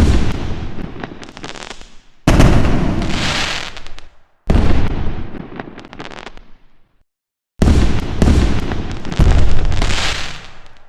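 Fireworks going off: five sharp bangs a couple of seconds apart, each followed by crackling that fades away.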